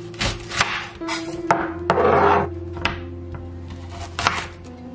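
A santoku-style knife peeling and cutting through an onion on a bamboo cutting board: a run of short slicing and scraping strokes, the longest and loudest about two seconds in. Soft background music plays underneath.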